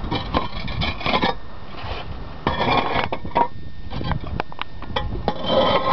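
Roof tiles clinking, knocking and scraping against each other as they are lifted and shifted by hand, in a string of irregular clatters.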